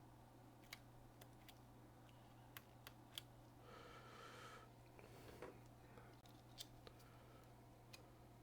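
Faint scattered small clicks and taps of laptop parts being handled, as a logic board is fitted into a MacBook Air's aluminium chassis, with a brief faint scrape about four seconds in, over a low steady hum.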